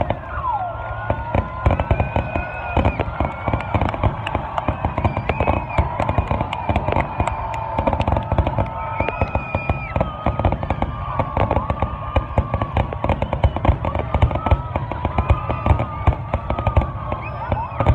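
Fireworks display going off non-stop: a dense, rapid run of bangs and crackles, several every second, with wavering whistle-like tones through it.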